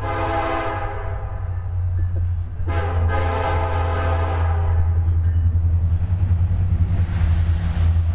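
Air horn of an approaching Union Pacific EMD SD70ACe diesel locomotive sounding two long blasts, the second ending about four and a half seconds in. Under them, the low rumble of the locomotive engines grows louder as the train draws near.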